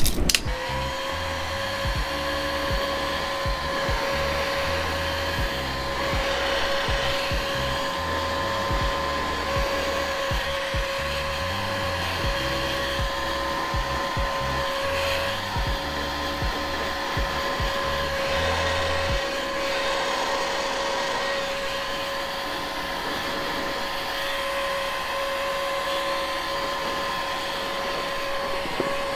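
Electric heat gun switched on and blowing steadily: a constant fan whine over a rush of hot air, shrinking heat-shrink tubing onto a toroid coil.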